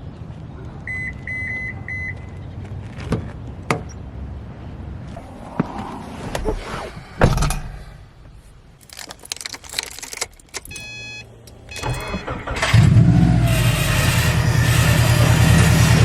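Car sounds: three short electronic beeps, then a series of clicks and thumps and a short run of chime tones. From about 13 seconds in, a much louder, steady low hum sets in, as of the car running.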